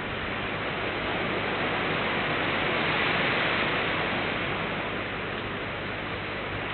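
Steady hiss of rain, swelling slightly a few seconds in.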